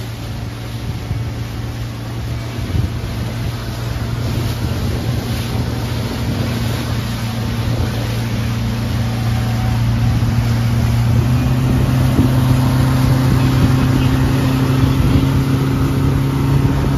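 Yamaha 60 outboard motor driving a small boat at speed, a steady engine drone that grows louder and steps up slightly in pitch about two-thirds of the way through, over the hiss of wind and rushing water.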